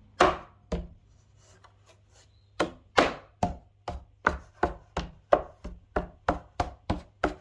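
Speaker grille cover being knocked into place on a subwoofer cabinet by hand: two sharp knocks near the start, then from about two and a half seconds in a steady run of firm knocks, about three a second, as the cover's pegs are pressed home.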